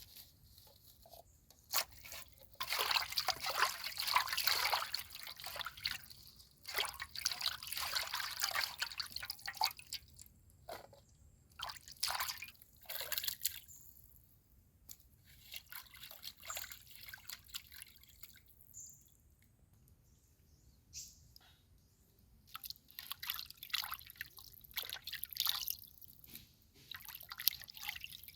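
Water splashing and dripping in irregular bursts, with scattered sharp clicks.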